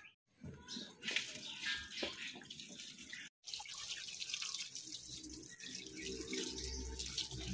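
Water running and splashing steadily, cut off by two brief gaps, with a low hum joining near the end.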